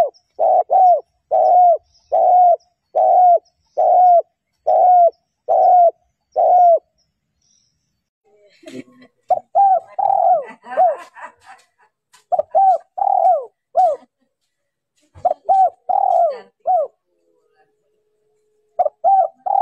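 Spotted dove cooing: a quick, even run of about eight coos in the first seven seconds, then, after a short pause, shorter phrases of three or four coos each.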